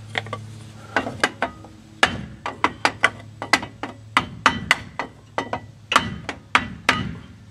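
Hammer striking a block held against the brake drum of a 1994 Chevy pickup to knock the stuck drum loose from the hub: a rapid, uneven series of sharp knocks, about three a second, starting about a second in.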